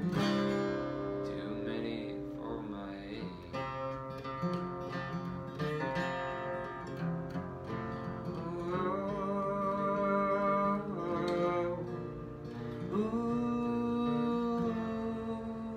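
Acoustic guitar being strummed and picked, with a man singing long held notes over it.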